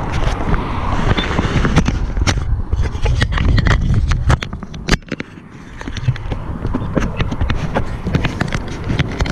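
Mountain bike rolling over rough ground: a steady low tyre rumble with many sharp rattling clicks from the bike. It eases off briefly about five seconds in.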